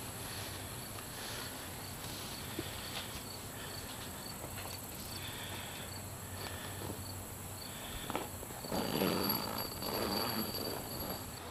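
Rustling, scuffing and light knocks of clothing, boots and a rifle against an elevated wooden hunting-blind stand as someone climbs in, loudest between about eight and eleven seconds in. Under it, insects chirp in a steady, evenly spaced rhythm.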